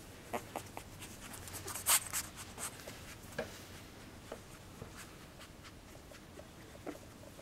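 Scratchy rustling and scattered small clicks as a newborn boxer puppy is held and turned in a hand on a soft blanket: fingers rubbing fur and the puppy's paws scrabbling. The sharpest scratch comes about two seconds in.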